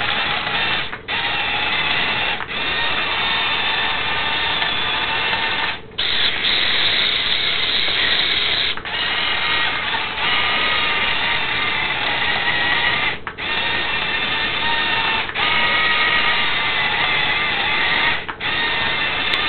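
Small electric drive motors and gearboxes of a 1/50-scale RC bulldozer model whirring with a high whine, stopping for a split second and starting again about every one to four seconds.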